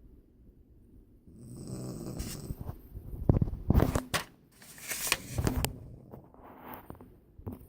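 A person snoring: about four rasping snoring breaths a second or so apart, the strongest about three seconds in.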